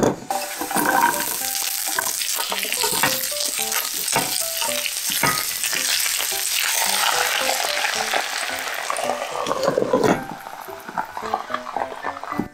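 Oil sizzling loudly in a nonstick frying pan as garlic and then broccoli fry. About ten seconds in the sizzle swells briefly and then drops to a softer, sparser crackle as the lidded pan steams the broccoli.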